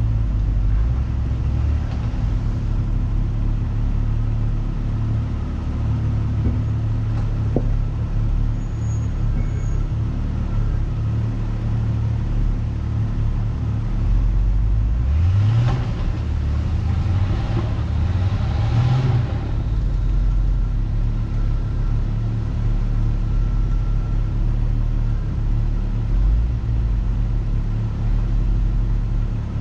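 Off-road vehicle engine running steadily at low revs while driving a rough trail. It revs up briefly twice around the middle.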